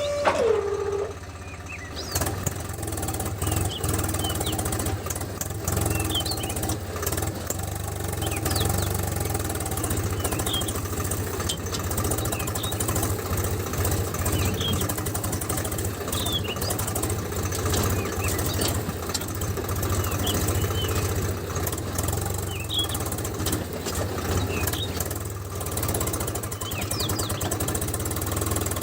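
A homemade mini tractor's motor running steadily with a low, pulsing hum that starts about two seconds in, just after a steady whine falls in pitch and stops. Faint short high chirps are scattered throughout.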